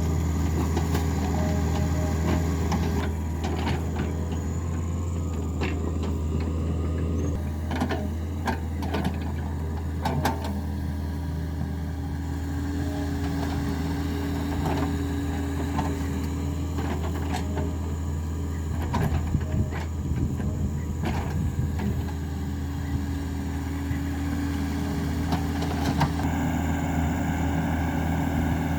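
Excavator's diesel engine running steadily under load, with scattered metallic clanks and knocks from the machine working.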